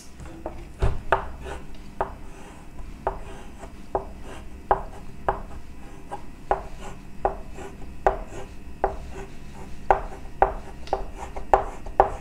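Chalk writing capital letters on a blackboard: a string of sharp, irregular taps, about two a second, each with a short scrape as a stroke is drawn.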